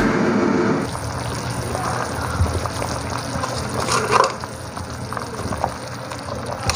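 Large aluminium stockpot of duck soup bubbling at a boil, with a ladle stirring through it near the end. A bit of music fades out about a second in.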